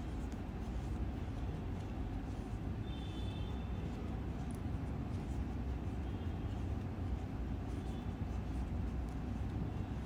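Steady low background rumble with no clear beat, with a faint short high tone about three seconds in.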